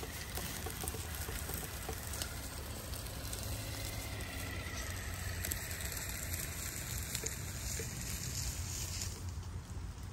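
Traxxas TRX-4 RC crawler trucks rolling over dry leaves and loose stones, a steady crackle and patter of leaves under the tyres with small scattered clicks.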